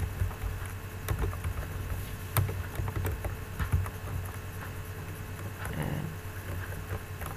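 Computer keyboard keystrokes, irregular clicks as an email address is typed, over a steady low hum.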